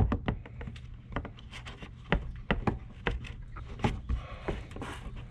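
Hand-handling noise from trailer-hitch installation work: scattered clicks and knocks, with a stretch of rubbing about four seconds in, over a steady low hum.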